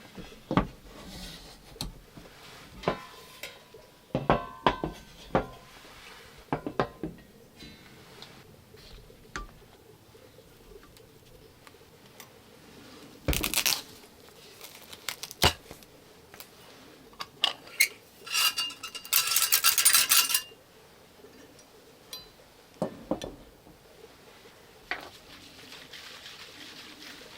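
Cookware and utensils being handled: scattered clinks and knocks, one sharper knock partway through, and a longer ringing metallic rattle about two-thirds of the way in.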